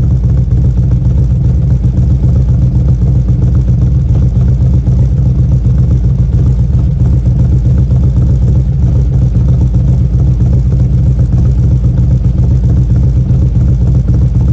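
2016 Harley-Davidson CVO Street Glide's Twin Cam 110 V-twin idling steadily through Vance & Hines Power Duals headers and CFR slip-on mufflers, its sound strongest at a low pitch.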